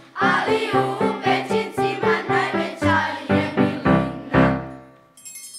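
Children's choir singing a lively song with instrumental accompaniment. The song ends about five seconds in.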